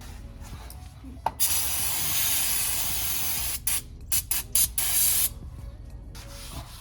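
Aerosol spray can sprayed in one long hiss of about two seconds, then several short squirts.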